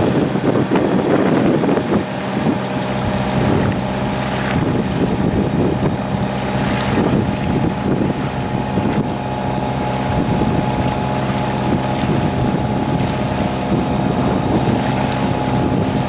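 A sailing yacht's engine running steadily while motoring under way, a constant hum. Wind buffets the microphone throughout, most heavily in the first two seconds, and water rushes along the hull.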